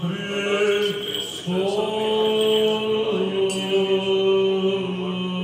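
Greek Orthodox Byzantine chant: male voice singing slow, long-held notes that step to a new pitch every second or two.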